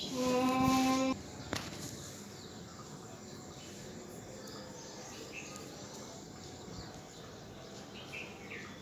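A steady pitched tone holds for about a second at the start, followed by a single click. After that there is a quiet, even outdoor background with a few short bird chirps near the end.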